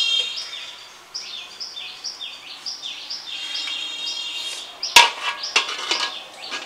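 Birds chirping over and over in short repeated calls, about two or three a second. About five seconds in comes a sharp metallic clank and a few lighter knocks as an aluminium lid is set down on an aluminium karai.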